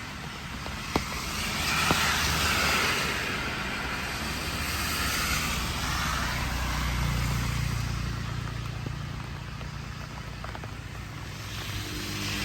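Car engine running under way with road and wind noise; the engine hum shifts in pitch and grows stronger in the second half. Two brief clicks about one and two seconds in.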